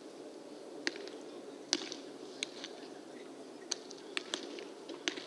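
Baseballs smacking into leather gloves during catch practice: several sharp, irregularly spaced pops from different pairs of throwers, the loudest about a second and a half in, over a steady low background noise.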